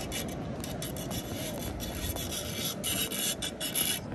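Irregular scraping and scuffing on a concrete pier deck from a toddler's rubber boots and the small fishing rod he drags along, coming quicker and louder in the second half, over a low outdoor rumble.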